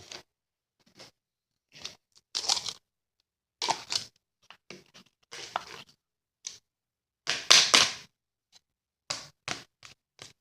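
Hands squishing and stretching slime: a series of short, irregular crackly squelches, the loudest a little past halfway.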